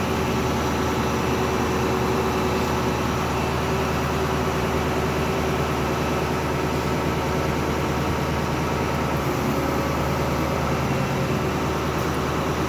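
Engine of a 25-ton mobile crane running steadily at an even speed, a constant low hum with no revving.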